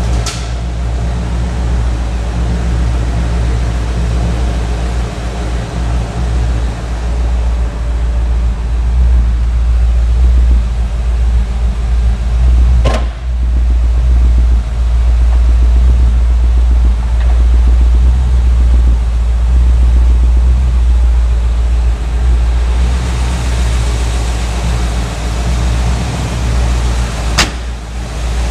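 Ford 302 V8 idling steadily. Two sharp clicks sound over it, one about halfway through and one near the end, the second as the door handle is worked.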